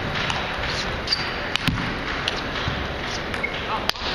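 Table tennis balls clicking off bats and tables, irregular sharp clicks from the rally and from other tables in the hall, over background voices.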